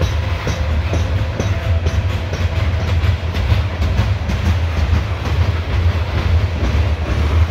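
Loaded CSX coal hopper cars rolling past close by: a steady low rumble of steel wheels on rail, with scattered clicks and clacks as the wheels cross rail joints.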